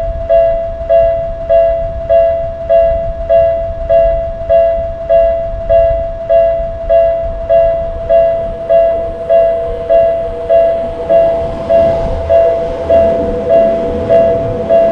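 Japanese railroad crossing warning bell ringing in a steady repeated ding, just under two strokes a second. A train's rumble grows under it in the second half.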